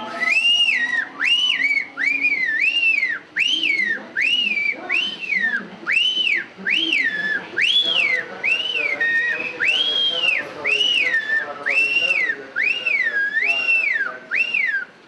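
A person whistling loudly through the lips: a long string of short, high notes, each sliding up and back down, about one a second.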